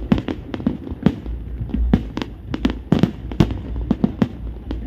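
Fireworks exploding in rapid succession: many sharp bangs a second with a deep rumble underneath.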